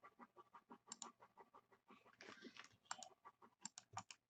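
Faint, irregular clicking of typing on a computer keyboard, several keystrokes a second, over near silence.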